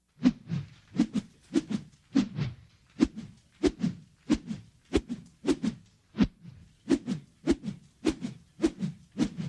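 Lasso rope twirled in circles, making rhythmic whooshes a little under two per second, each a sharp swish followed by a lower rush of air.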